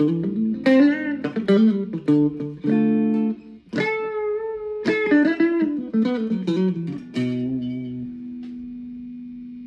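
Ibanez Gio electric guitar with a Tokai pickup set, played through an amp in the mixed single-coil and humbucker pickup setting: a soft, twangy run of picked notes and chords. About seven seconds in, the last chord is left to ring and fades out.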